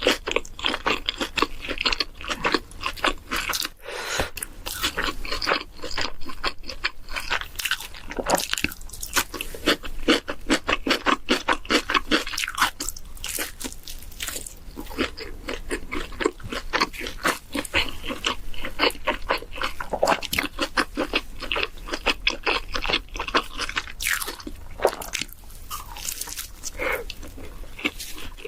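Close-miked chewing and crunching of food, a fast run of crisp crunches that pauses briefly a few times.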